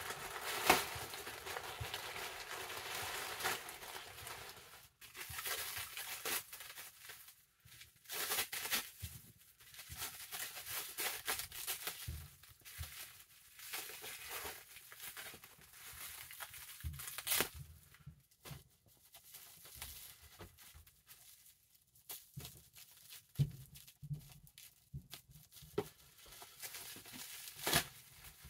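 A plastic poly mailer being torn open, with dense tearing for the first few seconds, then a clear plastic bag crinkling in bursts as it is handled and pulled off a cap.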